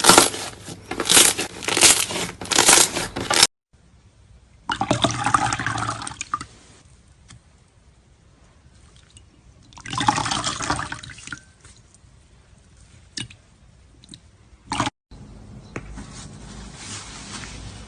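Slime being pressed and squeezed by hand, making wet, noisy sounds. It comes as a quick run of repeated bursts at first, then, after cuts, as two longer squelches with a few sharp clicks between them.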